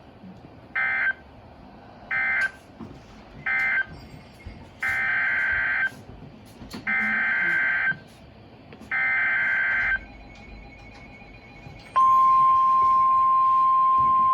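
Emergency Alert System digital data bursts over NOAA Weather Radio: three short buzzy bursts, the end-of-message code closing the first warning, then three longer bursts, the header announcing the next warning. About 12 seconds in, the steady 1050 Hz weather radio warning alarm tone starts and holds.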